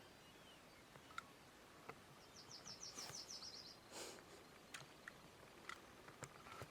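A small songbird singing one quick, high trill of about a dozen short down-slurred notes a couple of seconds in, over faint outdoor background hiss with scattered light clicks.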